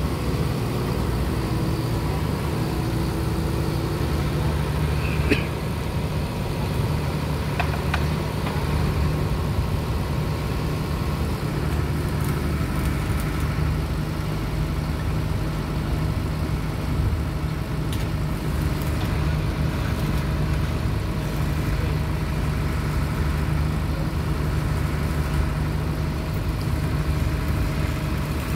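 Kobelco 7080 crawler crane's diesel engine idling steadily, with a single short knock about five seconds in.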